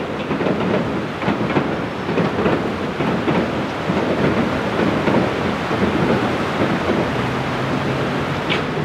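Durango & Silverton narrow-gauge steam train running close by: a steady, dense noise from the locomotive and wheels with irregular pulses through it.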